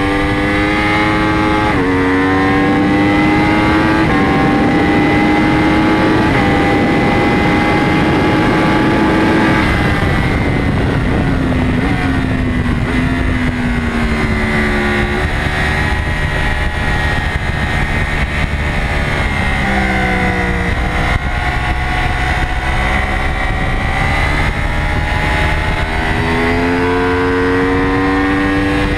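Yamaha YZF-R1 crossplane inline-four racing engine at full throttle, revving up through the gears with quick upshifts early on. About ten seconds in the revs fall away in steps as the rider brakes and downshifts, then the engine pulls hard and climbs again near the end.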